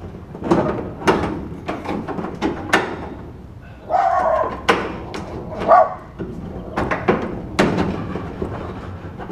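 Metal post extension sleeve knocking and scraping against the steel Colorbond fence post and top rail as it is worked down into the post: a string of sharp metallic knocks. A dog barks a couple of times in the background around the middle.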